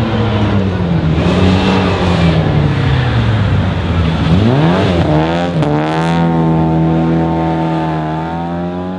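Volvo Amazon rally car's four-cylinder engine. Its revs fall for the first few seconds, then climb steeply about halfway through with a brief dip, and hold high and steady as the car accelerates out of the corner and past.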